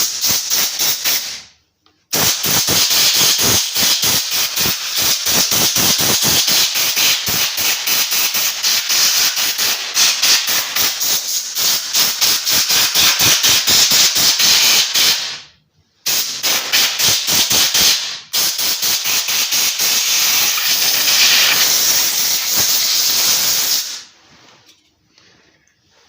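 Compressed air blasting dirt off a chainsaw: a loud rushing hiss with a rapid flutter, in four long blasts with brief breaks between them.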